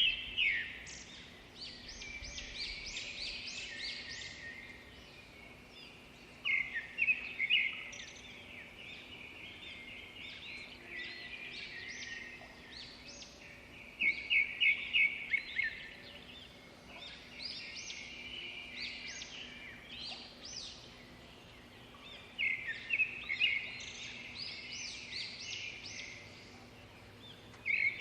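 A songbird singing, repeating the same phrase about every seven seconds: a quick series of sharp high chirps, then a trailing run of higher, thinner notes.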